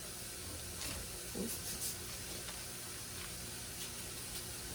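Steak frying in butter in a pan, a steady quiet sizzle with a few faint short ticks about a second or two in.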